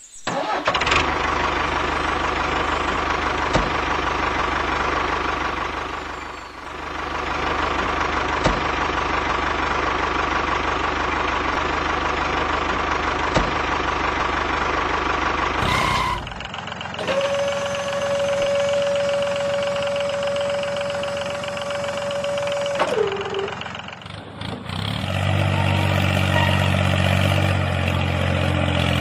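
Tractor engine running steadily, with a few abrupt breaks where the sound changes suddenly. Partway through, a steady whine holds for several seconds and then drops in pitch.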